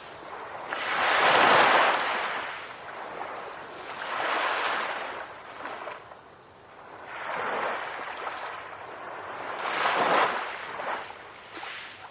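Ocean waves breaking and washing up a shore, rising and falling in four surges about every two to three seconds, the first and last the loudest.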